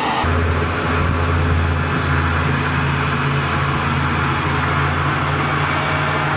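Diesel railcar engine running with a steady low drone as a single-car train rolls slowly past. The drone starts abruptly about a quarter second in.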